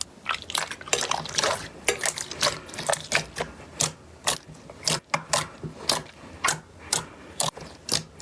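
Slime being squished and pressed by hand, making a run of wet clicks and pops, about two or three a second.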